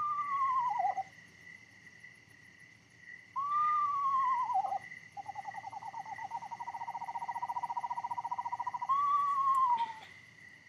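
Eastern screech owl calling: three falling, whistled whinnies about a second long, with a long one-pitched trill of nearly four seconds between the second and third. A faint steady high tone runs underneath.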